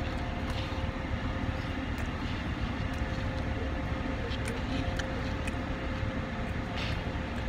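Steady low rumble of a car sitting with its engine idling, heard from inside the cabin, with a faint steady hum through the first few seconds.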